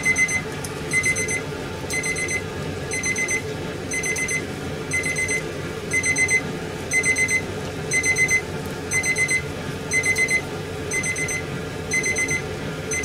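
Electronic alarm beeping on and on: short bursts of rapid high-pitched beeps, about two bursts a second, over a steady low background noise.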